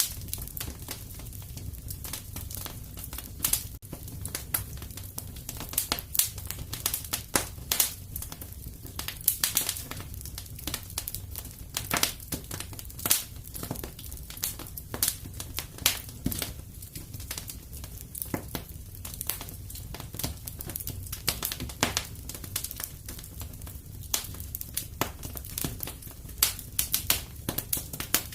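Wood fire crackling in a fireplace: irregular sharp pops and snaps, several a second, over a steady low rumble of flame.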